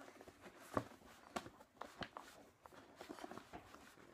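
Sneakers and a cardboard shoebox being handled: scattered light knocks and rustles, the loudest just under a second in.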